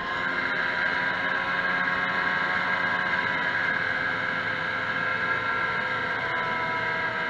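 Vintage 340 stock-class snowmobile's two-stroke engine held at high revs from on board, a steady whine drifting slightly down in pitch, over a rush of wind noise.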